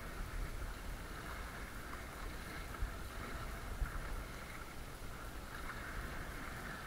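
Wind buffeting the microphone over choppy sea water sloshing and lapping against a sit-on-top kayak's hull, with a couple of faint knocks in the middle.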